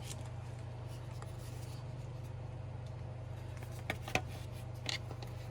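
A steady low hum with a few light clicks and taps from parts and tools being handled during engine-bay reassembly, the clicks clustered about four to five seconds in.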